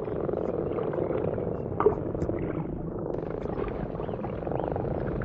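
Breeding chorus of many frogs calling at once, a steady low purring made of rapid pulses. A single brief sharp sound stands out about two seconds in.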